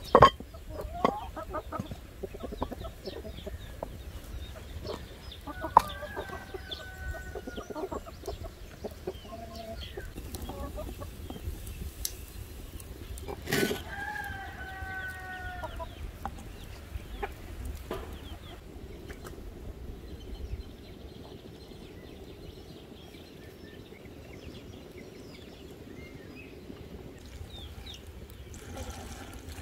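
Chickens clucking, with a rooster crowing twice, about six and about thirteen seconds in. Scattered sharp clinks and knocks, the loudest at the very start, come from a clay pot's lid and glass jars being handled.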